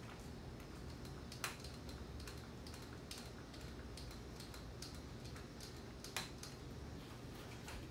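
Hand grease gun being worked on a front-suspension grease fitting: faint, irregular clicks and ticks, with two sharper clicks, about a second and a half in and again near six seconds.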